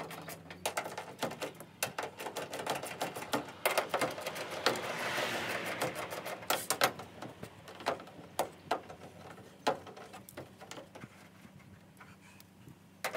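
Rapid, irregular clicking and rattling of a hand tool and plastic parts as the 10 mm mud-flap screws are backed out of a truck's rear wheel well. The clicking runs densest, with a rasping sound, about four to six seconds in, then thins to scattered clicks.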